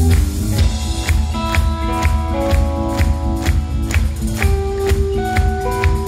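Rock band playing live: electric guitars holding sustained notes over a steady drum beat of about two hits a second, with no singing in this passage.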